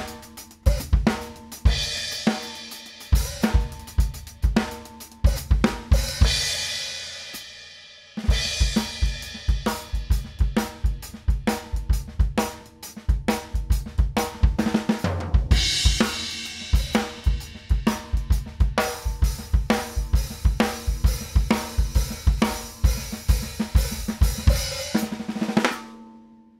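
Drum-kit groove played with sticks on a Fame Pure 14-inch hi-hat of handmade, unlathed B20 bronze, with snare and bass drum. The playing stops briefly about eight seconds in, then starts again. Near the end it stops and the cymbals ring out.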